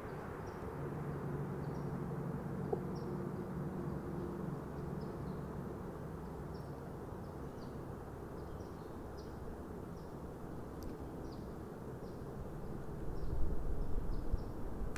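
Steady receiver hiss of band noise from the radio's speaker while a magnetic loop antenna is tuned for the loudest noise on 30 meters, with short high chirps repeating faintly throughout. A few low bumps near the end.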